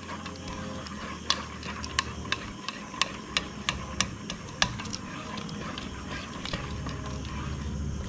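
A hand kneading and beating thin rice-and-coconut palappam batter in a steel bowl: sharp wet slaps and clicks, about two or three a second, for the first few seconds, then softer squelching.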